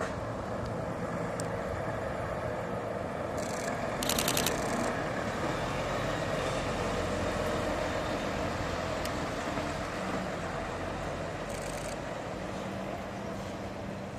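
Volvo FH tractor unit's diesel engine running as it hauls a low trailer loaded with a railway car, a steady drone with road noise that swells and then slowly fades near the end. A brief rapid chattering hiss comes about four seconds in.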